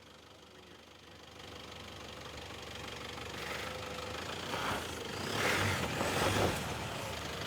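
Toyota Hilux pickup's engine running, growing steadily louder from faint over the seconds.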